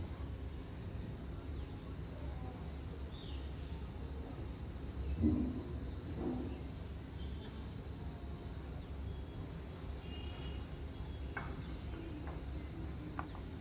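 Steady low background hum with a few faint chirps, like birds outside, and a soft thump about five seconds in, followed by a lighter one a second later.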